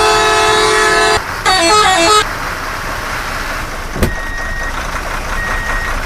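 Telolet-style multi-tone truck horn from a toy truck: a loud held chord, then a quick stepping run of notes that stops about two seconds in. A click follows about four seconds in, then a steadier motor-like sound with a short high beep repeating about once a second, like a reversing alarm.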